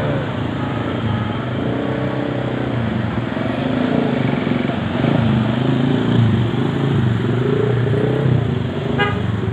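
Jammed road traffic: vehicle engines running, with a brief high horn toot about nine seconds in.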